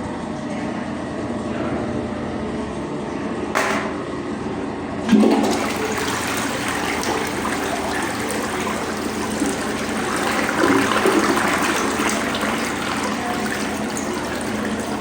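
A restroom fixture flushing: water is already running, a short click comes about three and a half seconds in, then at about five seconds a sudden rush of water sets in and keeps running.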